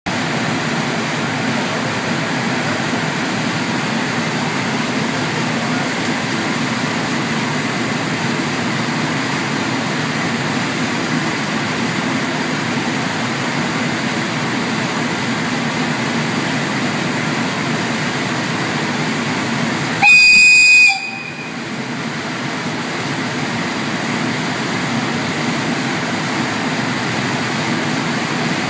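Silver EF510 electric locomotive standing at the platform with a steady hum. About two-thirds of the way through it sounds one loud, high-pitched horn blast lasting about a second.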